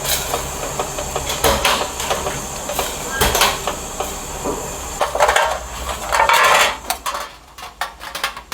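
Metal pots and utensils clattering and scraping, with several sharp knocks, over a steady hiss.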